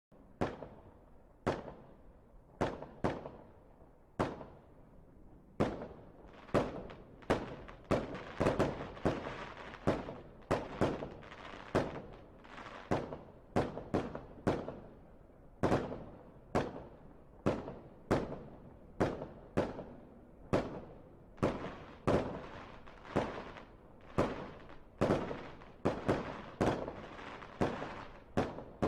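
Fireworks display: a long run of sharp bangs of aerial shells bursting, each with a short crackling, echoing tail. The bangs come a few seconds apart at first, then about one or two a second from around six seconds in, overlapping into a continuous barrage.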